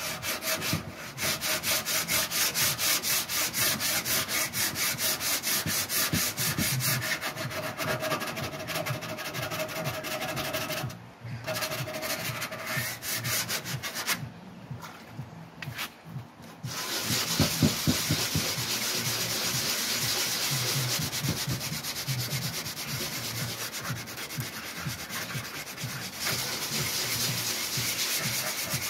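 Hand sanding with abrasive paper on a restored steel radiator panel, in quick, even back-and-forth strokes. The strokes stop briefly about eleven seconds in and again for a couple of seconds a little later, then resume as denser, more continuous rubbing.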